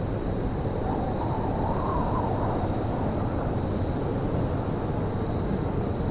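Steady low rumble of railyard ambience with a constant thin high whine over it; a faint wavering tone rises and falls about one to two and a half seconds in.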